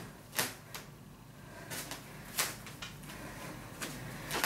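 A person exercising on a mat: a handful of short rustles and soft taps, irregularly spaced, from body, clothing and shoes moving on the mat.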